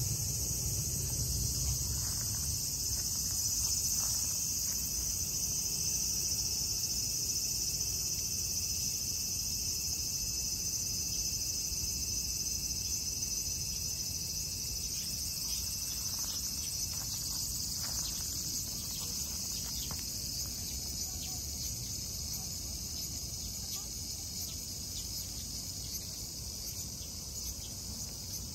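A steady, high-pitched chorus of chirring insects, continuous throughout, over a low rumble.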